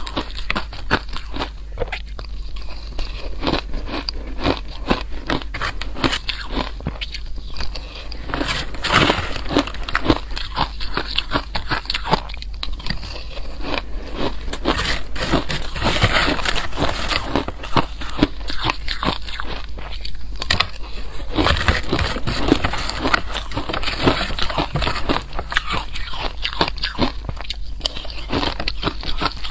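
Soft shaved ice coated in green powder being bitten and chewed close to the microphone: a dense, continuous run of small crunches and crackles.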